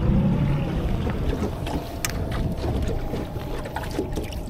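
A small aluminum jon boat moving slowly on open water: water sloshing against the hull and scattered light knocks, with a faint steady whine through most of it, as the boat comes up to a jug float and a hand reaches over the gunwale to grab it.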